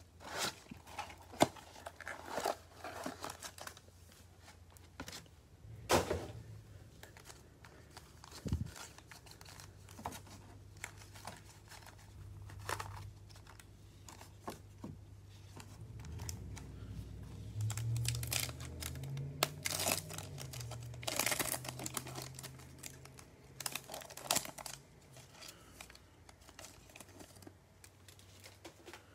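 Cardboard trading-card box being opened and foil card packs torn open: irregular crinkling and tearing with sharp ticks and taps.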